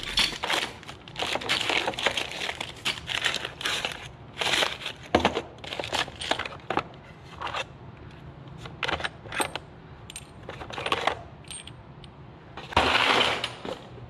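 Handling of small brass plumbing fittings and their plastic bags in a plastic tool organizer: irregular clinks and crinkling rustles, with a longer, louder rustle near the end.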